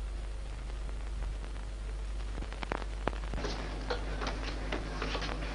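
Old film soundtrack hiss over a steady low hum, with scattered faint clicks and crackle that become busier about halfway through.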